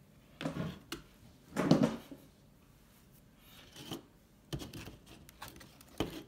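Handling noise from a laptop's metal-and-plastic palmrest and keyboard assembly being moved on a table: a few short scrapes and knocks, the loudest about two seconds in, then a run of sharp clicks and taps as it is picked up near the end.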